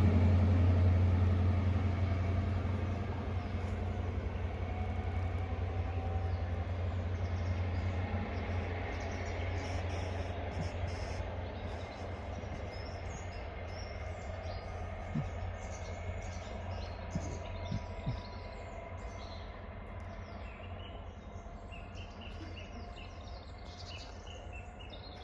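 Class 43 HST diesel power car pulling away, its low engine hum fading steadily as it recedes. Birds chirp from about ten seconds in.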